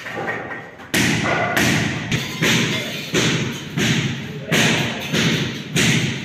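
Footsteps on a gritty concrete floor: a steady walking rhythm of loud thuds with a crunch, about one and a half steps a second, starting about a second in.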